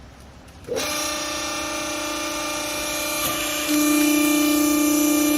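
Textile compress baler's electric motor and hydraulic pump starting up about a second in: a sudden, steady whining hum that steps up louder a few seconds later.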